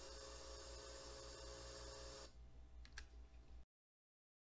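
Faint recording hiss with a low electrical hum that drops lower a little past two seconds in, then a single sharp click at about three seconds, after which the sound cuts off to complete silence.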